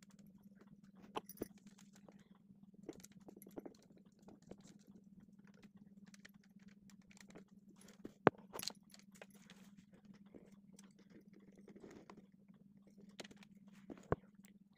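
Scattered small clicks and taps from handling cut plastic craft pieces, a paintbrush and a paint pot, the sharpest about 8 seconds in, over a steady low hum.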